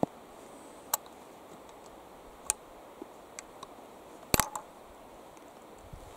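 Scattered sharp metallic clicks of a .50-70 Remington rolling block rifle's hammer and breech block being worked by hand, the loudest a quick double click about four seconds in, while the rifle is handled after a misfire.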